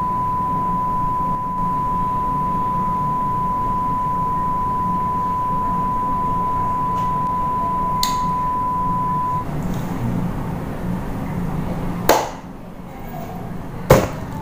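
A steady, high electronic beep tone held for about nine seconds over a low background hum, then cutting off. Two sharp knocks follow near the end, the second as the cardboard microphone box is picked up.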